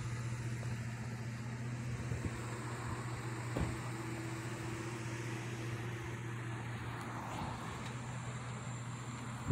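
A car engine running steadily with a low, even hum, and a light knock about three and a half seconds in.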